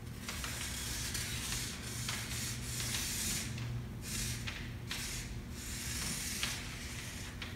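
Felt-tip marker scratching across paper in a run of short strokes with brief pauses between them.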